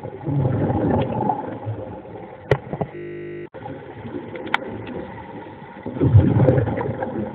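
Muffled underwater water noise, rising in two rough rushes, one shortly after the start and one near the end, with a couple of sharp clicks and a brief digital dropout in between.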